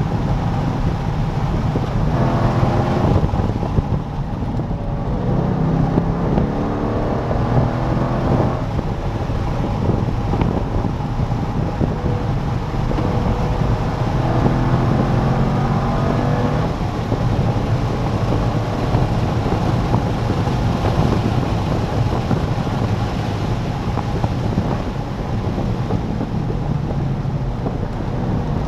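C5 Corvette Z06's LS6 V8 pulling hard around a track lap, its pitch climbing several times and dropping back at each gear change or lift. Wind and road noise run steadily underneath.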